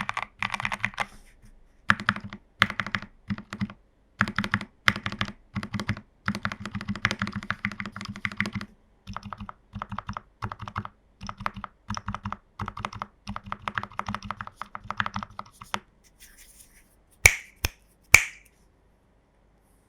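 Typing on a plateless TU40 plastic-case 40% mechanical keyboard with lubed Gateron Pro Milky Yellow linear switches, in irregular bursts of quick keystrokes. Near the end come three sharp, louder clicks, then the sound stops.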